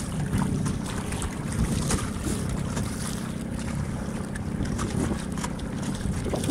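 Wind buffeting the microphone on a small sailing dinghy, with water washing against the boat, steady throughout with a few faint knocks.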